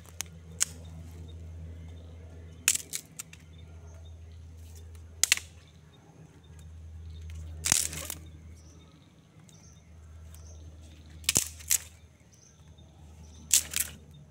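Dry sticks cracking and clattering as firewood is gathered onto a pile: a series of sharp cracks every second or two.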